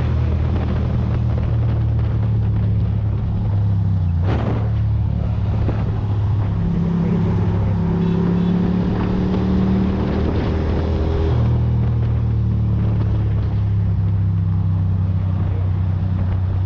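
Ducati Monster's V-twin engine running steadily while riding in traffic, its note shifting a few times as the throttle changes, over wind and road noise.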